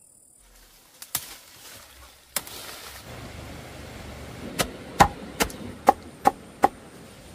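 Sharp chopping strikes: two single blows about a second apart, then a quick run of six blows at about two and a half a second.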